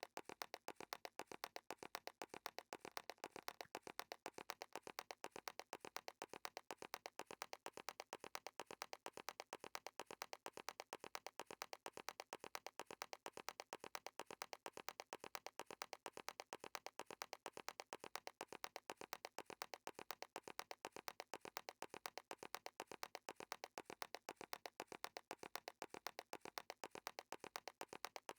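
Footstep sound effect repeated as a steady loop: short, sharp taps, several a second, evenly spaced and unchanging in rhythm.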